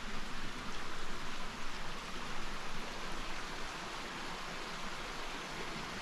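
Brook rushing over rocks: a steady, even water noise.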